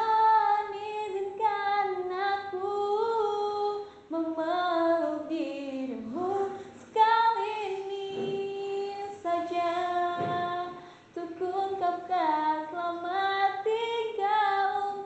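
A woman's voice singing a melody solo, with held notes and slides in pitch and short breaks for breath, and no clear accompaniment.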